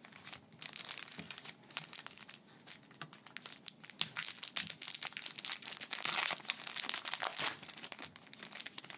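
Foil Pokémon card booster pack wrapper crinkling and crackling as hands flex and squeeze it, then being torn open along the top.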